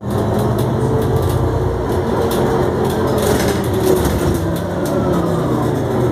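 Iveco 12 CNG city bus heard from inside while it drives: steady engine hum with a whine that slides down in pitch midway, and scattered rattles and clicks from the cabin.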